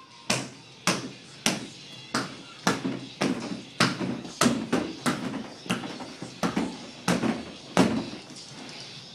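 Rapid hand strikes landing on a free-standing rubber torso striking dummy, about two sharp smacks a second in a steady rhythm, the last and loudest coming near the end.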